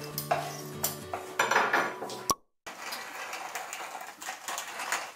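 A wooden spoon stirring thick cheese fondue in a red ceramic fondue pot (caquelon), scraping and lightly knocking against the pot. The sound drops out for a moment a little before the middle.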